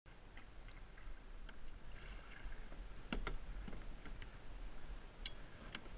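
Kayak on the water: scattered small clicks and knocks of paddle and gear against the plastic hull, with two sharper knocks about three seconds in, over a low rumble.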